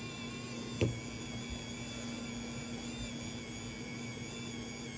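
A single sharp knock about a second in, a compact film camera set down on a wooden workbench, over a steady background hum with several high steady tones.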